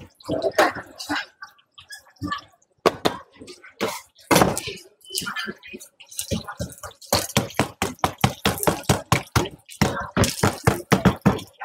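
Irregular clicks, taps and crackles of scallion pancake frying and handling at a street food stall, coming thicker in the second half.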